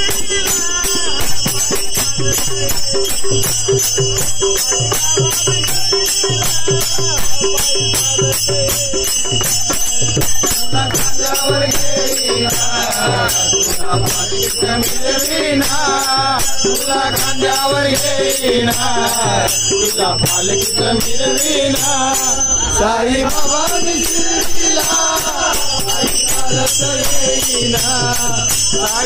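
Men singing a Marathi Sai Baba bhajan together, with small brass hand cymbals (manjira) ringing in a steady rhythm and hand claps. A low beat runs underneath, and the singing grows strong about ten seconds in.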